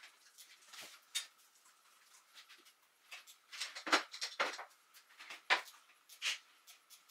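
Irregular clicks and taps of typing on a laptop keyboard, with a few louder knocks around four and five and a half seconds in.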